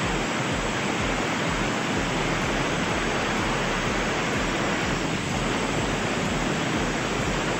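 Angle grinder with a thin cutting disc running steadily as it cuts through a plywood board.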